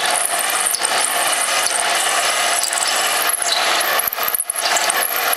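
Microlux 7x14 mini lathe running under load with its gear-train rattle while a drill in the tailstock chuck cuts into spinning aluminium bar stock, peck-drilling a hole. The level dips briefly about four seconds in.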